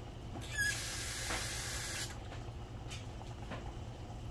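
A burst of water hissing starts suddenly about half a second in with a short squeak and runs for about a second and a half before cutting off, over a low steady hum.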